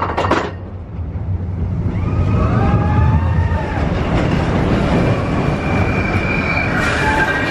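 Expedition Everest roller coaster train running along its track with a steady rumble, joined about two seconds in by a high squeal that rises and falls.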